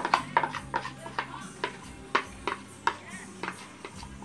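Background music with a low bass line that steps between notes and sharp percussion hits about twice a second.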